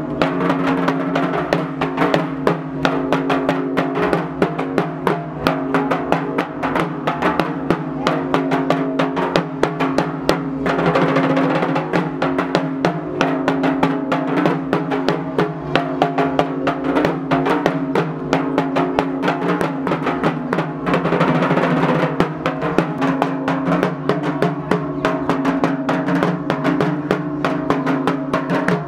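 Fast, continuous drumming over steady held musical tones, played as accompaniment to a dhunuchi dance.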